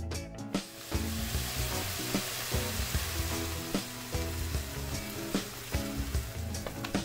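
Minced beef frying in a pan, sizzling as blended tomatoes are poured over it; the sizzle starts about a second in, under background music.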